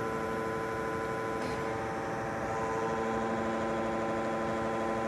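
Zbrojovka BK-5 cylindrical grinding machine running, a steady hum with several held tones from its motors and hydraulic drive while the wheel head is moved hydraulically. The tone of the hum changes slightly about halfway through.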